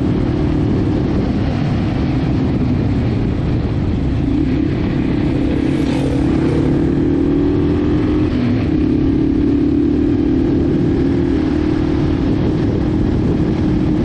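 Yamaha TW200's 196 cc air-cooled single-cylinder four-stroke engine running steadily under way on a dirt trail. Its note climbs for a few seconds about a third of the way in, then drops back near the middle and runs steady again.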